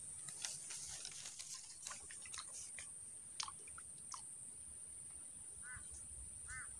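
Faint, irregular clicks and crackles of fishing tackle being handled close to the microphone for the first few seconds, over a steady thin high-pitched whine. Near the end a bird gives two short arched calls.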